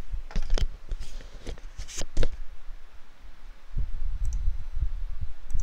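Handling noise close to the microphone at a computer desk: a handful of sharp clicks and knocks in the first two seconds or so, then low rumbling bumps in the second half.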